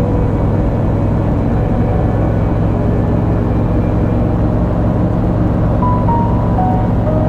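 Paramotor engine running steadily in flight: a steady low drone with air rush.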